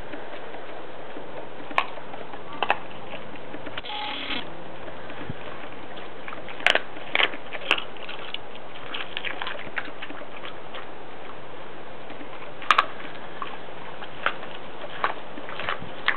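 Dog chewing a whole raw flatfish, with sharp irregular crunches of fish bone every second or few, loudest around 7 seconds in and again near 13 seconds, over a steady hiss.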